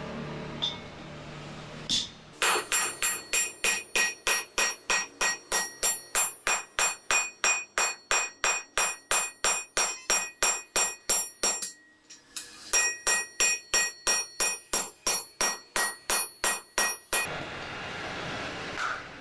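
Hand hammer forging a red-hot steel cleaver blank on a steel anvil block: a steady run of ringing blows, about three a second, with a short pause near the middle. The blows stop a couple of seconds before the end, leaving the steady rush of the electric blower feeding the charcoal forge.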